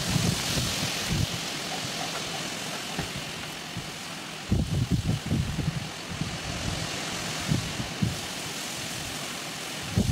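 Strong storm wind gusting through trees, with the leaves rustling in a steady rush. Gusts buffet the microphone in low rumbles about halfway through and again near the end.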